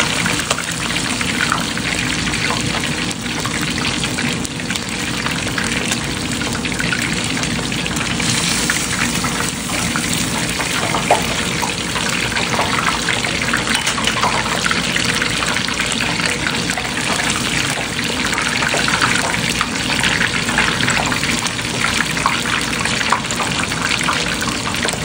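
Snapper deep frying in hot oil, a steady sizzle with fine crackling throughout.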